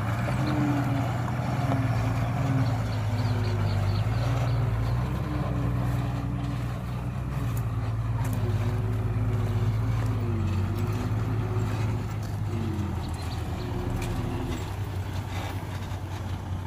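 Dump truck's diesel engine running, its pitch rising and falling a little as it works, then easing off near the end.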